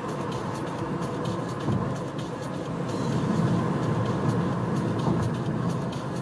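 Steady low rumble of a road vehicle's engine and tyres heard from inside, with faint light rattles.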